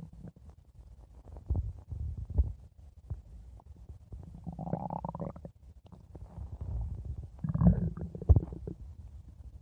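Stomach growling: irregular low gurgles and rumbles, with a squeaky whine a little before the middle and a louder one near the end.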